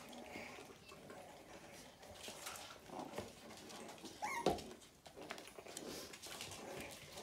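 Havanese puppies playing: small whimpering and yipping noises mixed with scratchy clicks of paws on a wooden balance board, with one sharp yip and knock about four seconds in.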